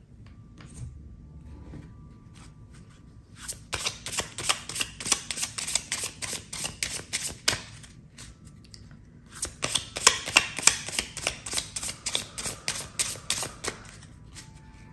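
A deck of cards being shuffled by hand: rapid runs of crisp card clicks in two spells of about four seconds each, with a short pause between.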